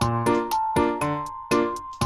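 Light background music: a run of short notes, about four a second, each dying away quickly, over a bass line.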